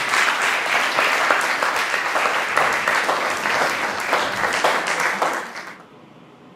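Audience applauding, many hands clapping, dying away about five and a half seconds in.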